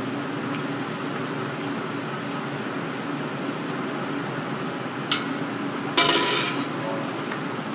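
Sauté pan of rabbit pieces with freshly added rabbit stock sizzling on a gas burner while the pan is moved by its handle. A click comes about five seconds in, then a louder metal clank with a short ring about a second later, over a steady background hum.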